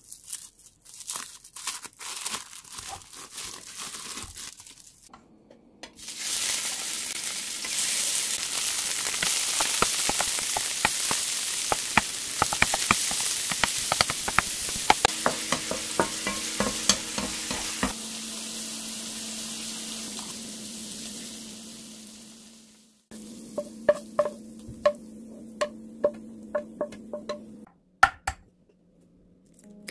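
Crumbled minced patty mixture sizzling in hot oil in a nonstick frying pan while a wooden spatula stirs and scrapes it, with many small sharp ticks over the hiss; the sizzle starts about six seconds in and dies away after about twenty-three seconds. Before it, the plastic-wrapped mixture crinkles as it is handled.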